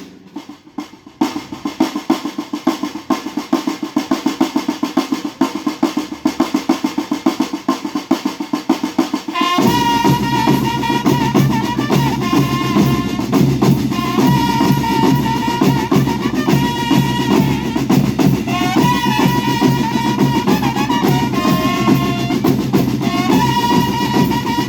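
School rhythm band playing: snare drums beat a cadence alone at first, then about ten seconds in the bass drums and melody instruments come in together and carry a march-like tune over the drums.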